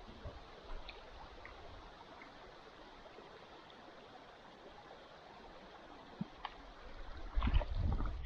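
Faint rushing of river water, with a few small clicks about six seconds in and some low knocks near the end.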